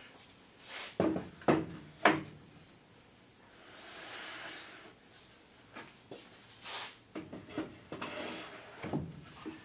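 Pine boards being lifted out of a wooden box joint jig, turned over and set back in: a few sharp wooden knocks in the first two seconds, a soft sliding rub about four seconds in, then more lighter knocks and clunks in the second half.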